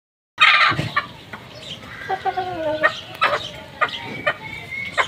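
Chickens clucking, with sharp short calls and one longer drawn-out call about two seconds in. The sound cuts in abruptly and loudly just after the start.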